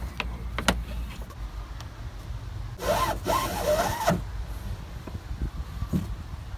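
Braided rope being pulled through drilled holes in a canoe hull, rubbing against the hull. A louder, squeaky rasp of rope dragging through a hole comes about three seconds in and lasts just over a second, after a couple of light clicks.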